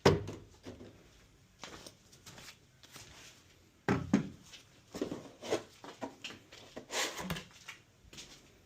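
Irregular knocks, clicks and short scraping handling noises, with a sharp knock at the very start and further clusters about four, five and seven seconds in.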